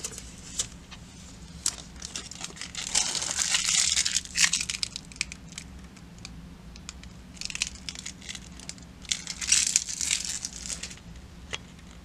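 Clear protective plastic film being peeled off a glossy drum-module panel and crumpled, crinkling in two spells with scattered small clicks and taps.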